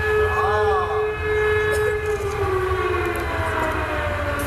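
Siren sound over a loudspeaker system: a held wailing tone that slides down in pitch from about two seconds in, over a steady low rumble, sounding a warning for the staged volcano eruption.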